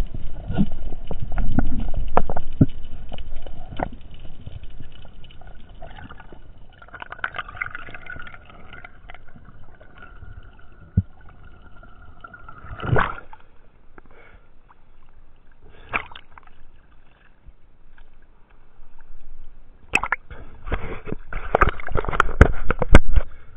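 Water sloshing and gurgling around an underwater camera, muffled by its housing, with a faint steady hum midway and sharp knocks and clicks, most of them near the end.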